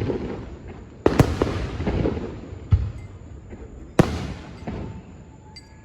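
Fireworks going off: four sharp booms about a second to a second and a half apart, each trailing off in a low rumbling echo.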